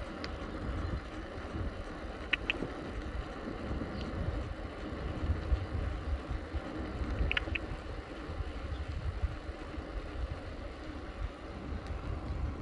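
Riding a bicycle on asphalt: steady tyre and frame rumble with wind buffeting the microphone. A couple of brief high double ticks, about two and seven seconds in.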